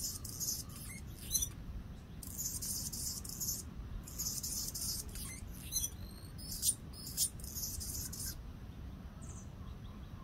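Anna's hummingbird singing: several very high-pitched phrases of about a second each, with sharp single chips between them, stopping near the end.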